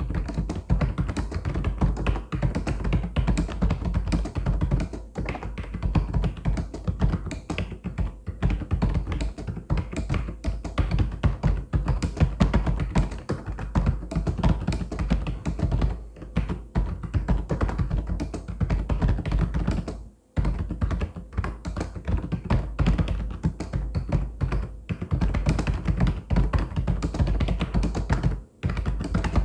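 Continuous fast typing on a mechanical keyboard: a dense run of key clicks and clacks, with a few short pauses where the keystrokes stop for a moment.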